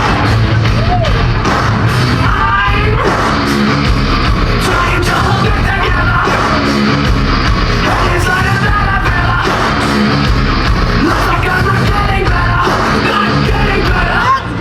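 Loud rock music with yelled and sung vocals and a heavy, steady bass, played over a show's sound system.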